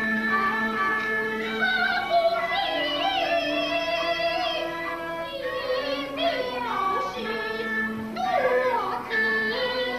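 Peking opera female singing of an erhuang aria: a high voice gliding and wavering through long drawn-out notes, over steady instrumental accompaniment.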